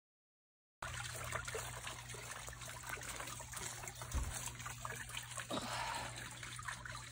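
Small backyard stone fountain trickling and bubbling steadily, coming in suddenly about a second in after silence.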